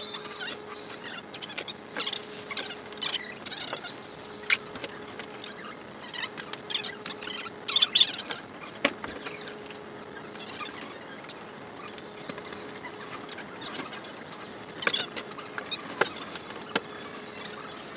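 Handling noise from someone working inside a pop-up ice-fishing shanty: fabric rustling and scattered small clicks, busiest and loudest about eight seconds in, over a faint steady hum.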